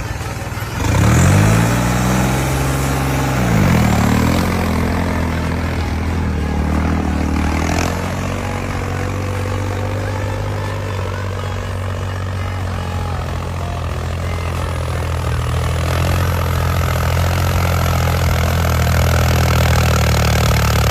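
Heavy machine's diesel engine revving up sharply about a second in, holding, and dropping back, with a second quick rev just after, then running steadily under load and growing slowly louder near the end.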